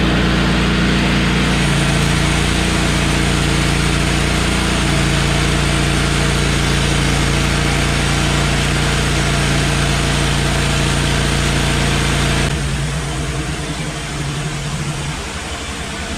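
Woodmizer LT15 portable band sawmill running as its band blade saws through a pine log: steady engine under load with a loud hissing cut. About three-quarters of the way through, the cutting noise stops suddenly and the engine runs on more quietly as the blade comes out of the log.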